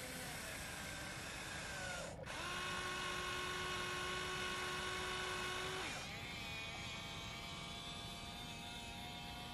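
Electric motors of a Huina radio-controlled excavator whining as it raises its boom and bucket and starts to swing. The whine breaks off briefly about two seconds in, holds steady and a little louder, then changes pitch around six seconds in as another function takes over.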